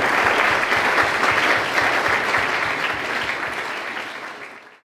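Audience applauding, a dense steady clapping that fades away in the last second or so and then cuts off abruptly.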